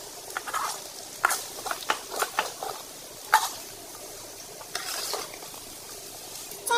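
Metal spatula scraping and stirring potato strips and egg in a frying pan over a low sizzle. A run of scrapes and clinks comes in the first half, the loudest about three seconds in, then only the sizzle goes on.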